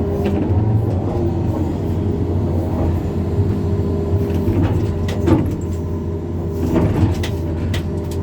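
Excavator's diesel engine running steadily under work, with a couple of sharp knocks about five and seven seconds in.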